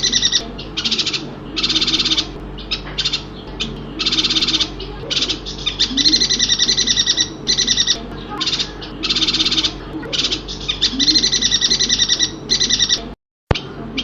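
Yuhina song: repeated bursts of fast, high chattering notes, each half a second to a second long, separated by short gaps. The sound cuts out completely for a moment near the end.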